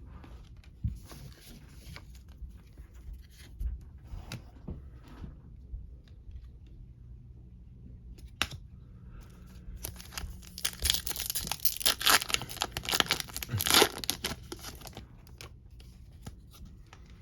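A baseball card pack's wrapper being torn open and crinkled, with a dense run of crackling from about ten to fourteen seconds in; lighter rustling of wrapper and cards before that.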